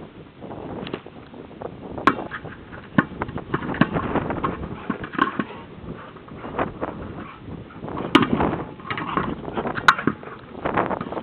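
Hard plastic herding ball being nosed and shoved along grass by a border collie, making irregular knocks and scrapes, the sharpest about two, eight and ten seconds in, over the rustle of the dog's paws scrambling through the grass.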